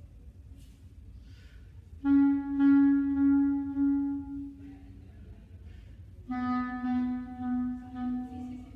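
Solo clarinet playing two long held notes, each about three seconds, the second a little lower than the first, with a pause of about a second between them. Only faint room hiss comes before the first note, about two seconds in.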